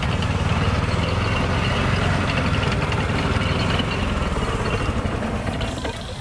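A motor engine running steadily at idle, a loud low rumble that eases off near the end.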